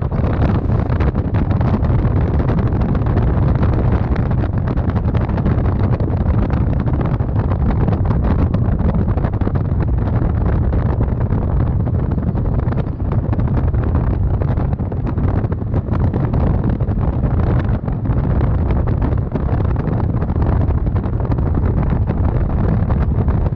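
Wind buffeting the camera's microphone: a steady, loud, low rumble with constant flutter.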